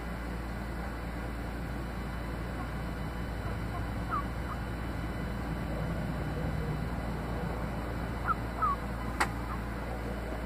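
Pet rats giving a few short, faint squeaks, one about four seconds in and two close together near the end, over a steady room hum. A single sharp click comes just before the end.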